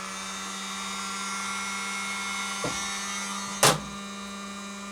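FlashForge Adventurer 3 3D printer's cooling fans running with a steady hum and whine that doesn't sound right: one fan is a non-original replacement. A faint click about two and a half seconds in and a sharp, louder click about a second later.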